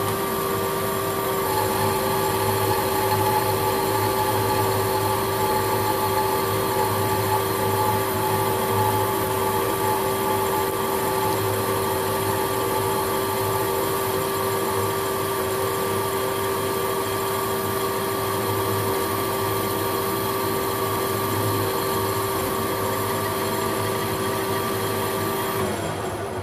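Holbrook C8 metal lathe running, its carbide tool taking a very fine cut along a hardened steel bar: a steady machine whine made of several constant tones. The cut is so light it is barely removing metal. The sound dies away just before the end as the spindle is switched off.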